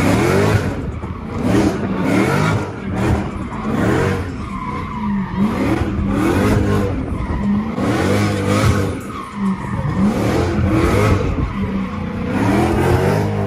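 Dodge Charger SRT's V8 engine revving up and falling back again and again while its tyres skid and squeal on the pavement, heard from inside the cabin.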